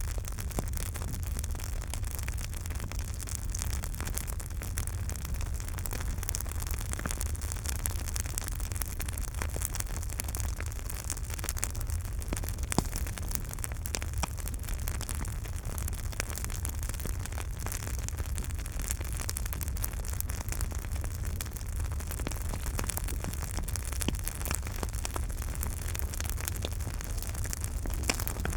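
Campfire burning, a steady hiss and low rumble under many small crackles and pops, with one sharper pop about halfway through.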